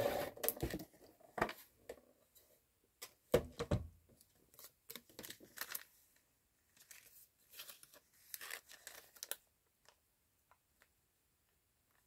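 Crinkling and rustling of a clear cellophane treat bag and cardstock bag topper being handled, in irregular bursts. The loudest rustle comes about three seconds in, and the sounds thin out to near quiet about ten seconds in.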